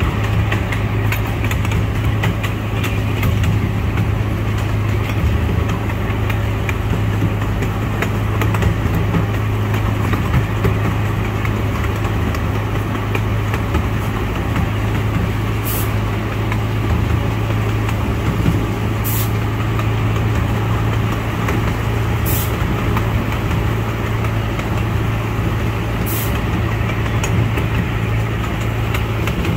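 Engine of a small ride-on park train running steadily with a constant deep hum and rumble as it travels, with a few short high-pitched clicks in the second half.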